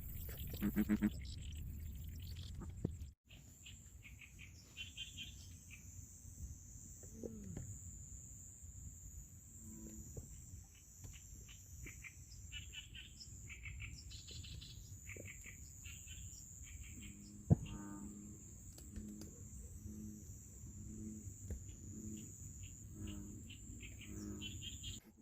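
Marsh wildlife at dusk: a steady high-pitched insect drone with scattered chirping calls. In the last third a slow, regular series of low pitched calls, about two a second. There is one sharp click about two thirds of the way in.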